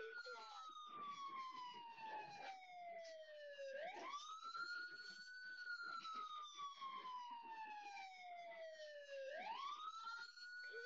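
Police car siren on a wail cycle, faint: each sweep climbs quickly, then falls slowly over about four seconds, with new rises about four seconds in and again near the end.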